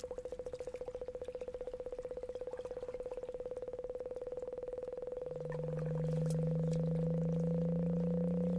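Electronic sonification tones from the Sonic Kayak: a rapidly pulsing mid-pitched synthesized tone, joined about five seconds in by a louder, steady low tone that slowly rises in pitch.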